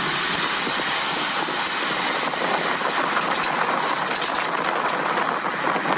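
A Nissan Sylphy sedan driving over a rough, bumpy road, heard from a phone held out of the car's window: steady road and wind noise with a few light knocks in the middle. The knocks are the rear-wheel clanking that the dealer puts down to the rear handbrake mechanism and calls normal for this model.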